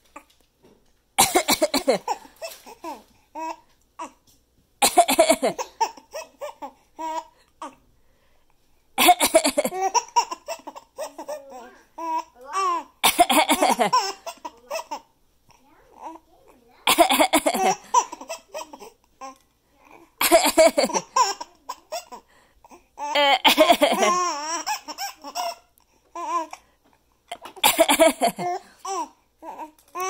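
A 4-month-old baby laughing in about eight bouts, roughly every four seconds, each set off by an adult's short fake cough.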